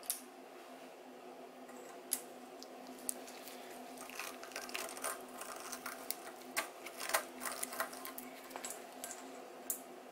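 Hand deburring tool's swivel blade scraping and clicking against the edge of a drilled hole in a steel profile tube as it chamfers the hole from the inside. It comes as irregular short scrapes and ticks, thickest a few seconds in, over a steady hum.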